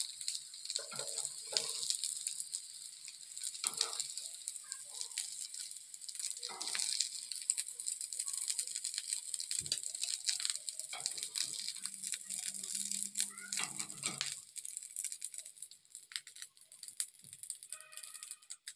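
Oil sizzling in a ridged grill pan while fried rice cutlets are lifted out with a metal slotted spatula, with irregular clinks and scrapes of the spatula against the pan and plate.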